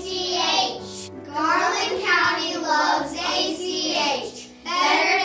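A group of children singing together over a musical accompaniment with steady low notes.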